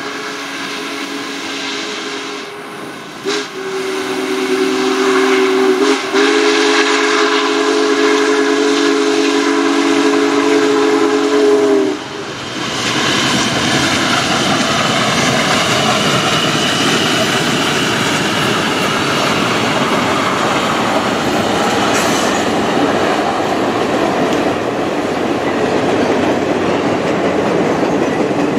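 Union Pacific Big Boy 4014 steam locomotive sounding its chime whistle in repeated blasts, the last held about six seconds and cut off about twelve seconds in. Then the steady rumble and clatter of the locomotive and its passenger cars rolling past.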